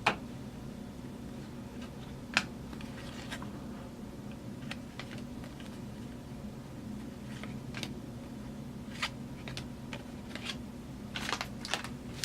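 Football trading cards being handled and flipped through: scattered light clicks and rustles, a sharper snap about two seconds in, and a busier patch of rustling near the end.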